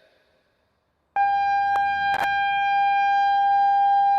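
ACA outdoor warning siren sounding its test tone for the regular monthly test of the outdoor warning system. The tone is a loud, steady single pitch with no rise or fall. It starts abruptly about a second in and keeps going.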